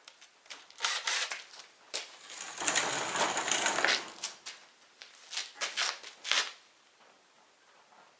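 Clicks and clatter of small hard tools or parts being handled and set down, with a harsher rubbing, scraping stretch of about a second and a half in the middle.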